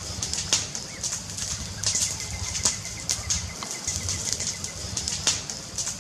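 Fire crackling: irregular sharp pops and snaps over a steady hiss and a low rumble.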